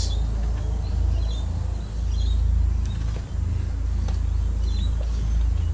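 A felt-tip marker writing on a whiteboard, with a few faint short squeaks and light taps of the tip, over a steady low hum.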